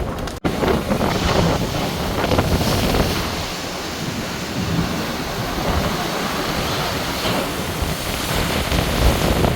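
Rough storm surf breaking and washing, with strong gusty wind buffeting the microphone.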